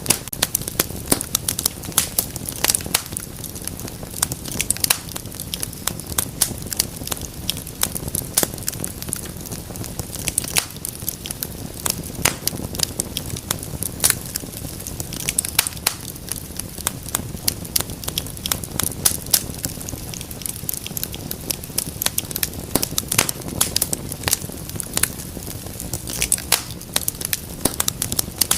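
Wood fire crackling, with many irregular sharp pops and snaps over a steady low rumble of burning.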